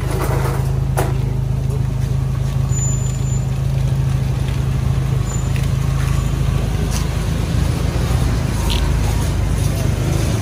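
A vehicle engine idling steadily with a low hum, with a few short metallic clicks from a wire dog crate being handled.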